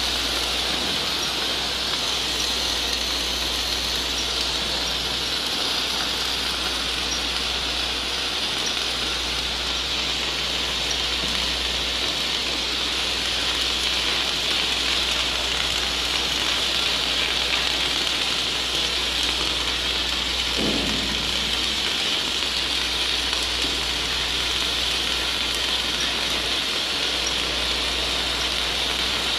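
Wire-fed welding arc on a magnetic welding carriage's torch, a steady sizzling hiss as the carriage runs along the seam.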